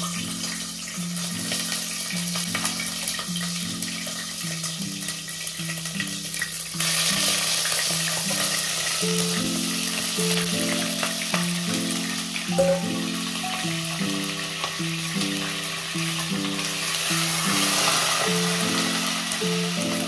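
Chicken pieces deep-frying in hot oil, a steady sizzle that gets louder about seven seconds in. Soft background music with a repeating melody plays along.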